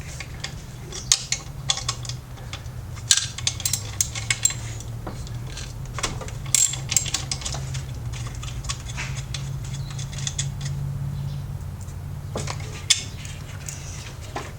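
Irregular metal clinks and taps of a wrench and socket against the alternator and engine-bay parts as the alternator's wiring is undone, over a steady low hum.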